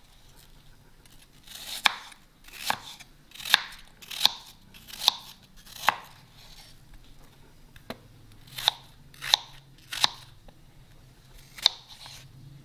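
Kitchen knife chopping a peeled apple into small cubes on a wooden cutting board: a run of six evenly spaced strikes, a short pause, then four more.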